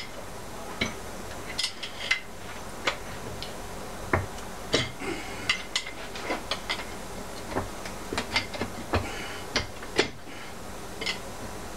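Irregular sharp metal clinks and knocks of hand tools on an Evinrude/Johnson 60-degree V6 outboard powerhead, as an old screwdriver is worked like a chisel to free a stubborn flywheel.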